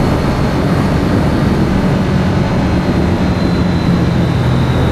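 Triumph Street Triple R's three-cylinder engine running at a steady road speed, its pitch dipping slightly about four seconds in, with wind rushing past the microphone.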